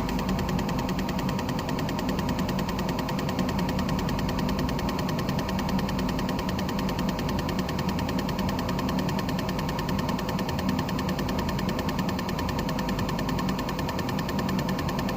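Purge valve (tank-venting solenoid valve) of a 2007 BMW X3 3.0si clicking rapidly and steadily as a scan tool cycles it. The valve is working again now that its connector, found unplugged, has been clipped back on.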